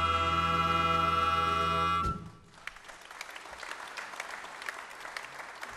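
A musical number ends on a loud held final chord, which cuts off about two seconds in, and the audience applauds.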